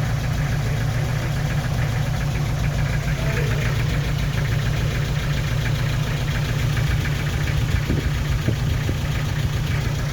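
Nissan TD27 four-cylinder diesel engine idling with a steady knocking clatter. It is misfiring, which makes the engine shake, and the mechanic sets out to trace the misfire to the injectors. A couple of sharper clicks sound about eight seconds in.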